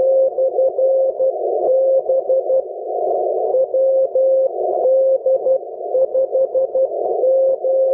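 Morse code from a 10-metre amateur radio beacon, received on an HF transceiver: a single-pitched beep keyed in dots and dashes over narrow-filtered band hiss, sending the beacon's callsign WD5GLO/B.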